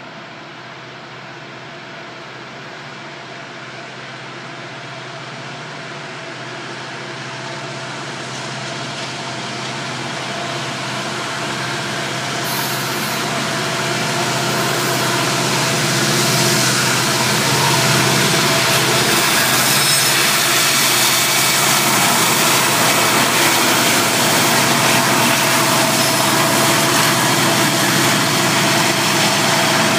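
Norfolk Southern diesel locomotives hauling a loaded coal train up a steep grade at full throttle, the engines growing steadily louder as they approach and then holding loud. A steady whine runs through the engine sound.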